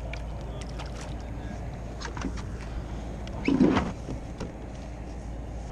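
Water and wind noise around a plastic fishing kayak, with a few light clicks and a short, louder burst of handling noise about three and a half seconds in.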